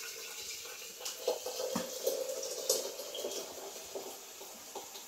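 Hot water from a kettle being poured over cumin seeds to make jeera water: an uneven splashing pour with a few light knocks, strongest in the middle and tailing off near the end.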